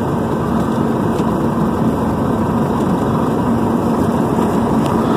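Scania R440's straight-six diesel engine running steadily as the unladen truck rolls slowly, heard from inside the cab.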